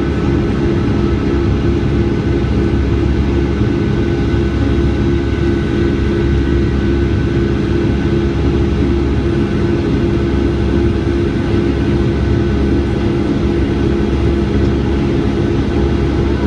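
Cabin noise inside a Boeing 757-200 airliner: a steady, loud drone of the jet engines and rushing air, with a few held humming tones.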